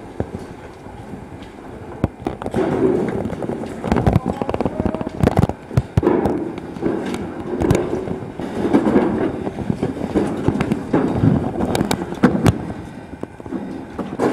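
A caver's gear and suit knocking, clanking and scraping against the rock while moving through a narrow cave shaft, with rustling close to the microphone. The knocks are irregular and come in clusters, the sharpest about four to six seconds in and again near the end.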